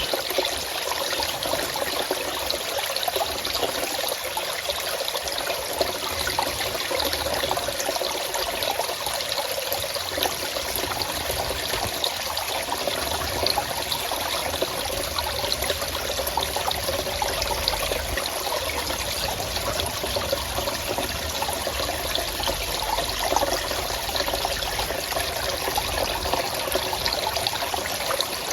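Water of a forest stream trickling and splashing steadily.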